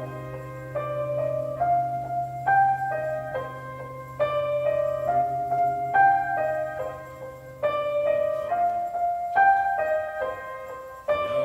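Background piano music, a repeating pattern of struck notes over changing chords. A steady low hum underneath stops about eight seconds in.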